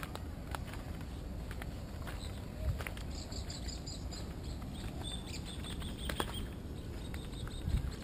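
Footsteps on a wood-chip path over a steady low rumble, with two heavier thumps about three seconds in and near the end. Bird chirps in quick series come about three seconds in and again around six seconds.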